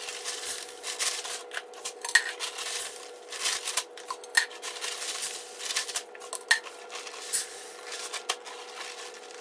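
Feed sacks rustling and a plastic tub knocking as bags of grain and seed are lifted and moved, with scattered sharp clicks every second or so over a faint steady hum.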